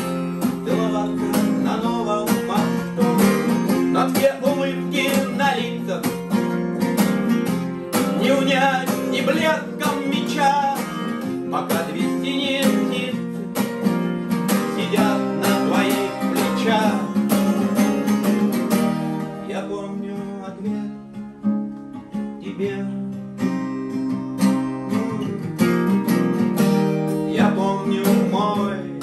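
Two acoustic guitars playing an instrumental passage between sung verses, strummed chords under picked notes. It eases off to a softer stretch about two-thirds of the way through, and singing comes back in near the end.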